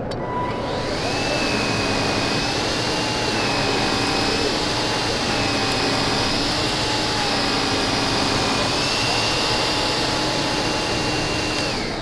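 Bissell Air Ram cordless stick vacuum running on carpet, a steady motor whine whose pitch shifts slightly up and down every couple of seconds as it is pushed back and forth.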